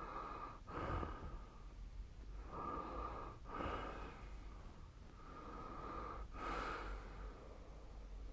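Sleeping person snoring lightly: three noisy breaths about three seconds apart, each in two parts with a brief break between.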